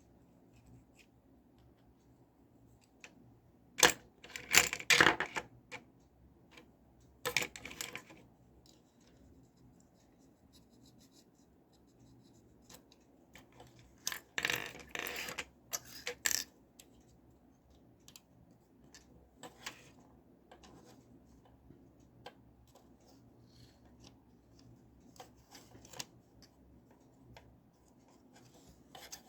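Small hard parts of a plastic toy cap gun being handled: short clusters of clicks, clinks and scrapes separated by quiet stretches.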